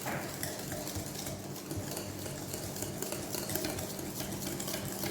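Liquid cake batter being stirred by hand in a bowl, the utensil scraping and clicking against the bowl in quick, irregular strokes.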